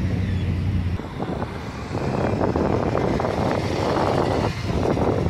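Vehicles driving slowly past at close range. A low, steady engine hum fades after about a second, and from about two seconds in a louder, rough rushing noise builds as a Can-Am Spyder three-wheeled motorcycle passes close by.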